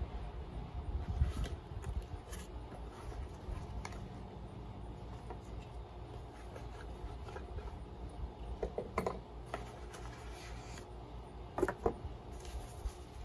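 A cardboard box being opened and its packing paper and plastic wrapping handled: soft rustling, crinkling and small clicks, a few sharper crinkles near the end, over a low steady background rumble.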